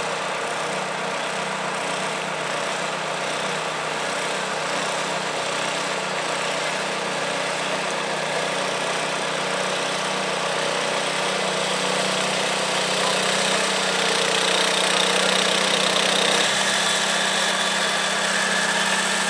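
Small garden tractor engine running steadily at low throttle as the tractor drives slowly along the pulling track. It grows a little louder in the later seconds.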